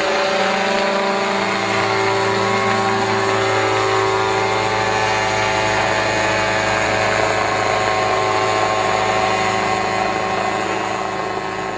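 Remote-controlled unmanned helicopter flying overhead, its small engine and rotor giving a steady hum with many even tones. The sound starts to fade away near the end.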